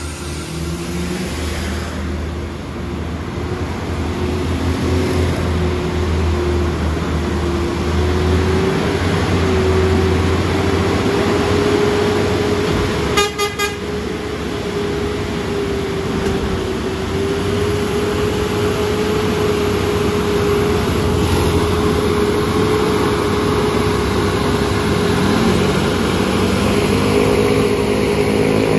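MAN heavy truck's diesel engine working hard under a very heavy load as it crawls up a steep hairpin, a low rumble with a steady high whine over it. The engine note rises near the end as the truck comes close.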